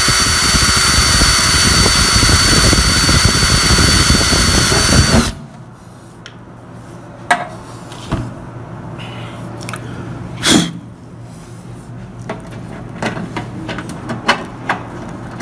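Electric hand drill running steadily with a high whine as it bores a hole through the podium's panel. It stops sharply about five seconds in. Then come scattered light clicks and a knock as the new socket is handled and fitted into the hole.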